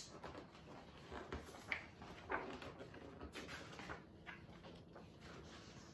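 Faint rustling and a few soft clicks of a large picture book's paper pages being turned and handled.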